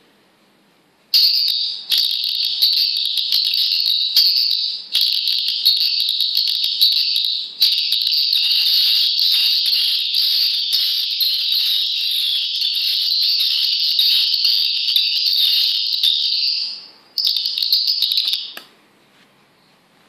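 Recorded swiftlet calls played through a loudspeaker by a swiftlet-house lure sound system: a dense, high twittering chirp that starts about a second in, breaks off briefly a few times, fades out near the end, comes back for a moment and stops.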